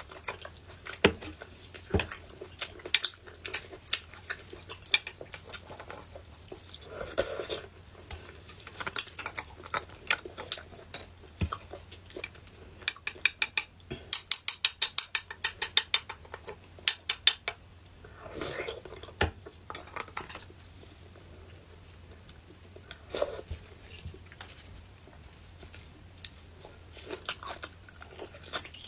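A metal spoon scraping and clicking against the inside of a beef marrow bone as the marrow is dug out, with a quick run of clicks in the middle, and a few eating sounds between.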